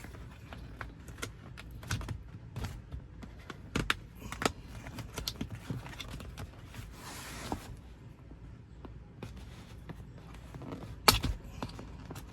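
A metal pick prying staples out of a plastic center console lid: irregular small metal clicks and taps, a short scraping rustle about seven seconds in, and a sharp click near the end.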